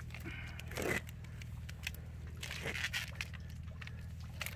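Coiled plastic spray hose rustling and scraping as it is handled, with a few light clicks, over a steady low hum.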